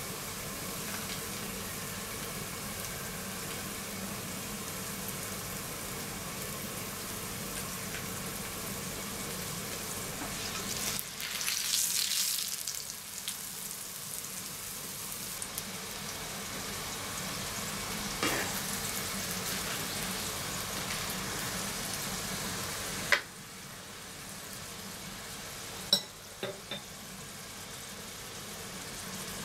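Flatbread frying in oil on a flat griddle pan, sizzling steadily, with the sizzle swelling briefly about twelve seconds in. A few sharp clicks near the end, the first followed by a quieter sizzle.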